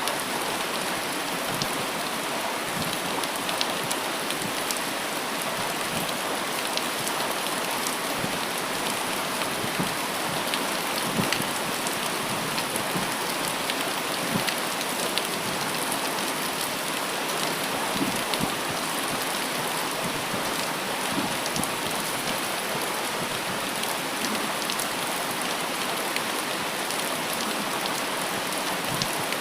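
Steady rain falling, an even hiss with many individual drops ticking on surfaces.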